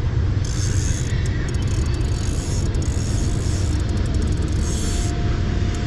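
Wind buffeting the microphone: a steady low rumble with a faint hiss that comes and goes in gusts.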